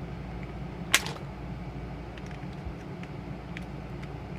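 Small metal items clicking against a metal mint tin as they are worked out of it: one sharp click about a second in, then a few faint ticks, over a steady low hum.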